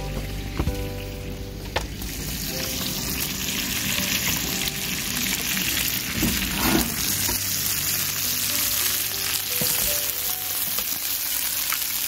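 Maple sap boiling down to syrup in a pan over a wood fire, with a steady sizzling hiss that grows louder about two seconds in. The sap is running shallow and close to syrup, the stage where it can scorch.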